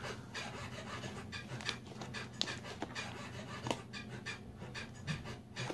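Rapid, rhythmic panting, about three or four breaths a second, with a few sharp clicks.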